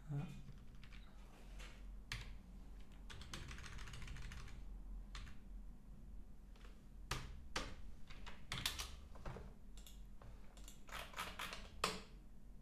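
Computer keyboard typing: irregular runs of keystrokes with short pauses between them, busiest in the second half.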